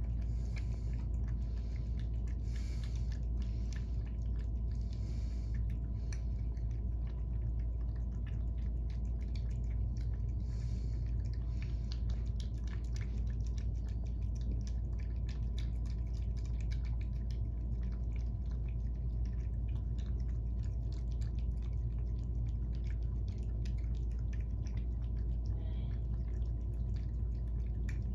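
Two cats eating wet food from bowls: many small wet clicks and smacks of chewing and licking, over a steady low hum.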